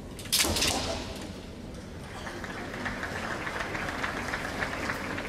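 Kendo attack: a sudden sharp crack of bamboo shinai and a stamp on the wooden floor, fading within about half a second. From about two seconds in, a dense patter of many small clicks builds and holds.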